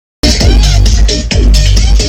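Electronic dance music with very heavy bass, played loud through a car sound system; it starts abruptly a moment in.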